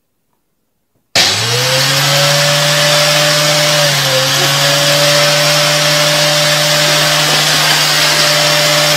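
An electric motor switched on about a second in, spinning up quickly and then running loud and steady: a whine over a rushing noise, dipping briefly once near the middle.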